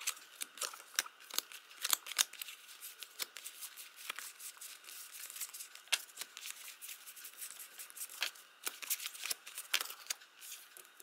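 Stack of nail water-decal sticker sheets being handled and sorted by hand: an irregular string of light paper clicks, flicks and rustles.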